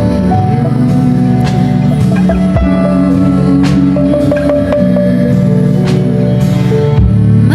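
Background music: an instrumental passage of a gentle song with guitar, held notes and light percussion, between sung lines.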